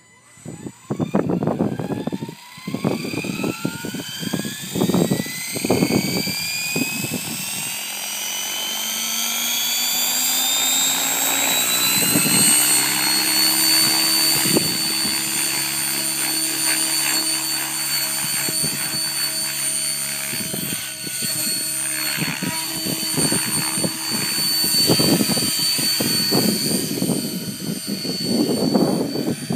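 Outrage Fusion 50 electric RC helicopter spooling up: the motor's whine rises steadily in pitch for about twelve seconds, then holds at a steady pitch with the rotor's buzz as the helicopter lifts off and flies. Low, gusty rumbling from wind on the microphone over the first several seconds and again near the end.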